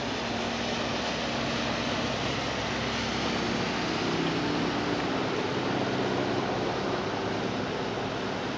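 Boat engines running steadily under a broad rush of wind and water, as a fishing boat motors past close alongside; the sound swells a little about four seconds in, when it is nearest.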